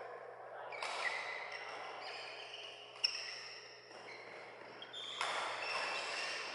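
Badminton play in a large, echoing sports hall: sharp racket strikes on shuttlecocks and short, high squeaks of shoes on the court mats. One crisp hit stands out about three seconds in.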